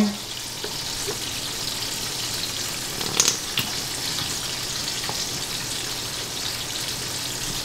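Food frying in a pan on the stovetop: a steady sizzle, with a couple of light clicks about three seconds in.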